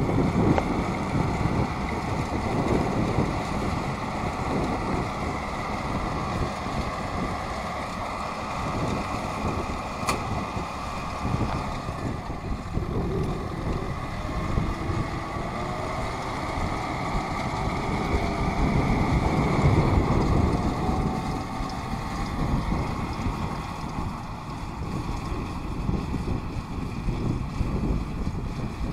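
Kubota M6040SU tractor's four-cylinder diesel engine running steadily under load as it pulls a straw round baler.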